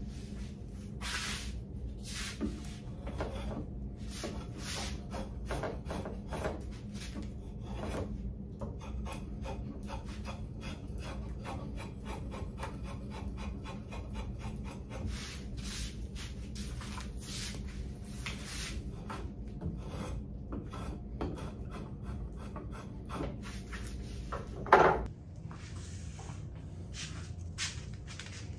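Kirschen (Two Cherries) 10-inch curved drawknife taking shavings off wood: a long run of short, irregular scraping pull strokes, with one louder knock near the end.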